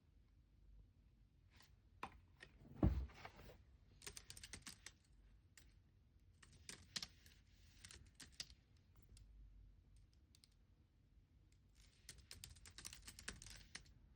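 Typing on a computer keyboard in several short bursts of key clicks with pauses between them, and one dull knock, the loudest sound, about three seconds in.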